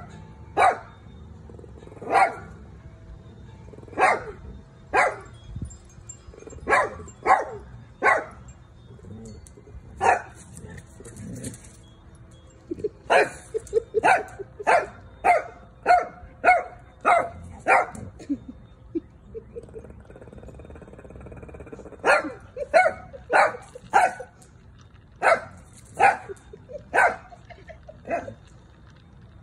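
Dog barking in play: short, sharp, high barks in quick runs of several, with a lull midway through.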